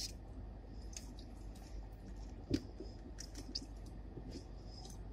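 Quiet eating sounds of fried chicken: scattered small clicks and crackles of chewing and of handling the food, with one louder knock about two and a half seconds in.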